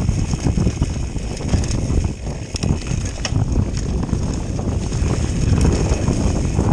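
Mountain bike riding fast downhill over a rough, stony dirt trail: tyres rumble, and the bike rattles and knocks unevenly, with occasional sharp clicks.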